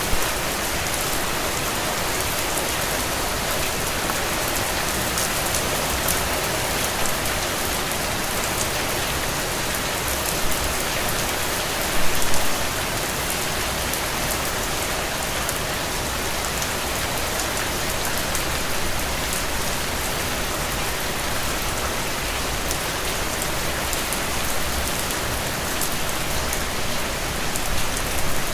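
Steady rain falling, with individual drops pattering on a surface, a few slightly louder splashes about twelve seconds in and again near the end.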